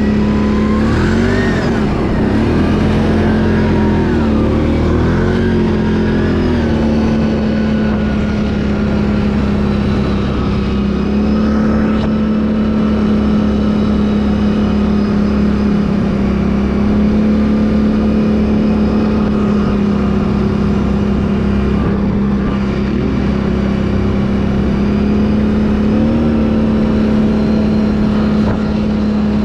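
Can-Am ATV engine running under way, its revs rising and falling for the first several seconds, then holding a steady drone.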